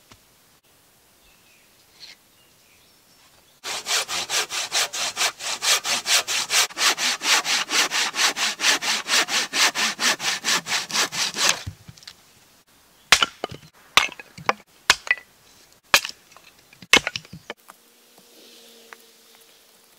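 Hand saw cutting through a dry oak branch in quick, even strokes, about five a second, for some eight seconds, then stopping. After it come a few sharp wooden knocks as the cut logs are set down among the stones of a fire pit.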